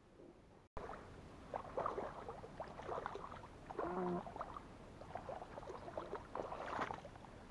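Water sloshing and splashing in shallow marsh water as someone wades through it, with irregular small splashes and clicks starting abruptly less than a second in. A brief pitched call or voice sound comes about four seconds in.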